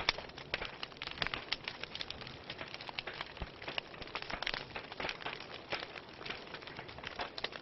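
Wood fire crackling in a fireplace: frequent sharp snaps and pops, irregularly spaced, over a steady hiss.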